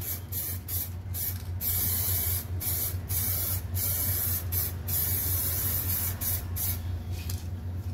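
Aerosol spray-paint can spraying in a series of short hissing bursts, about a dozen, with brief gaps between them.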